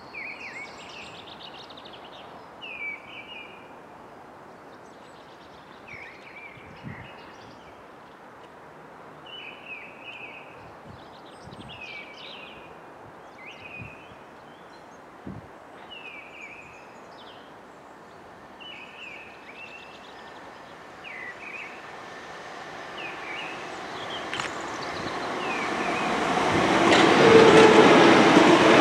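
Short bird calls every second or two over a quiet background, then a Southeastern Class 377 Electrostar electric multiple unit approaching, growing steadily louder from about two-thirds of the way in and passing close with wheel-on-rail noise near the end.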